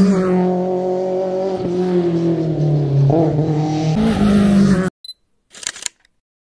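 Rally car engine running hard at high revs, its note stepping down a couple of times and rising again as the car passes close by. The sound cuts off abruptly about five seconds in, followed by a brief crackling click and then silence.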